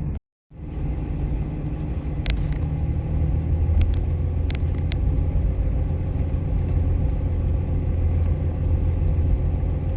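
Pickup truck driving along a road, heard from inside the cab: a steady low rumble of engine and tyres, with a few sharp clicks or rattles. The sound drops out for a moment just after the start.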